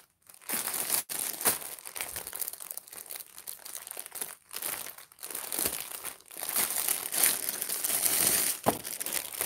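Clear plastic bag crinkling and rustling as it is handled around a packaged hair extension, in irregular crackly bursts with a few brief pauses.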